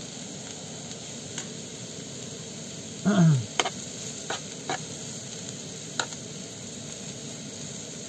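Bolete mushrooms and onions frying in oil in a non-stick pan over a gas burner: a steady sizzle, with a spatula stirring and clicking against the pan a few times. About three seconds in comes a short low sound that falls in pitch.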